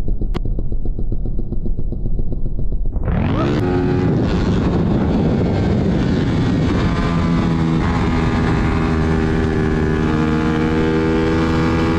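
Single-cylinder engine of a Suzuki GSX-R150 running hard at speed, with wind rush. The first three seconds sound muffled; then the engine note climbs sharply as it revs up and holds high, rising slowly near the end.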